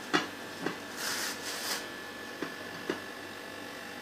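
Plastic cling film rustling briefly as it is peeled off a frozen ice cream cake, with a few light knocks of the cake and dish being handled.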